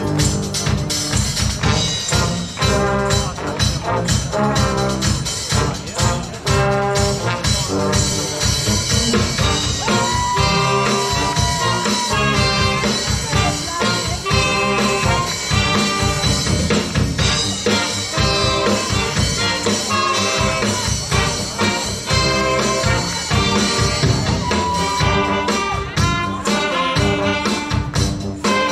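Brass band playing live, trumpets and trombones over a steady beat, with a couple of long held notes.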